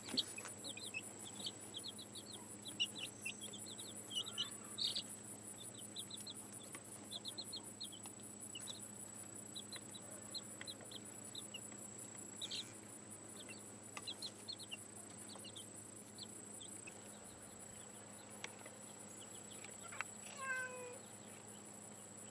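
Baby chicks peeping in quick runs of short, high peeps over a steady, high-pitched insect trill. One short call falls in pitch near the end.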